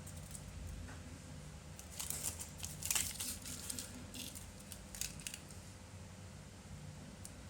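Light clicks, scrapes and crinkling of small tools and parts being handled during a phone repair, clustered between about two and five seconds in and loudest around three seconds, over a low steady hum.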